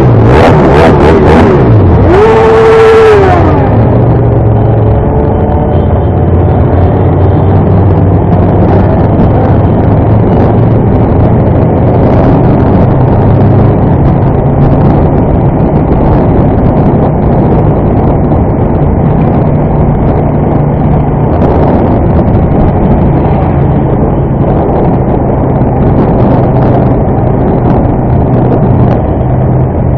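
Motorcycle engine running while riding in traffic, a steady drone whose pitch steps up and down a few times with the throttle, over a constant rush of noise. A short hiss and a brief wavering tone about two to three seconds in.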